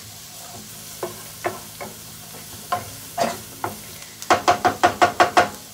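A spoon stirring onions sautéing in oil in a pan. A low sizzle runs under scattered knocks of the spoon against the pan, then a quick run of about eight knocks a second comes near the end.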